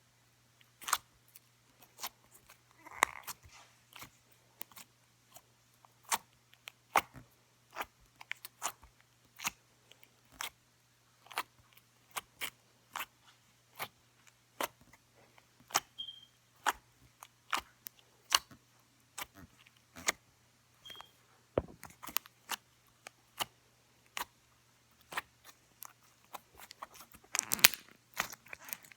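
Slime being poked with the fingers, making irregular sharp little clicks and pops about one or two a second, with a quick run of them near the end.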